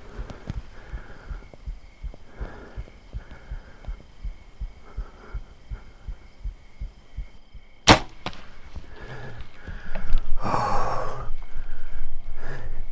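Compound bow shot: a single sharp crack of the string release about eight seconds in, after a run of soft low thumps about twice a second. Louder rustling follows a couple of seconds later.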